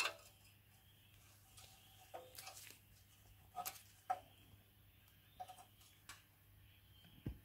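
Combination spanner clicking against an 11 mm exhaust bolt on a Briggs and Stratton engine as the bolt is undone, with faint, irregular metallic clicks as the spanner is turned and refitted, and a low thump near the end.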